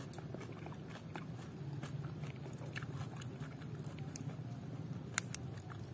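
Close-up chewing and biting of food, with many faint wet clicks and one sharper click about five seconds in.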